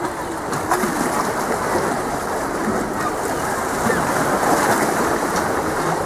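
Sea water lapping and washing against breakwater rocks: a steady rushing with a few small splashes.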